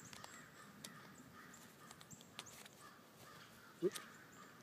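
Faint ticks and rustling as the straps and buckle of a nylon hammock compression sack are handled and loosened, with a brief louder sound just before the four-second mark. Birds call faintly in the background.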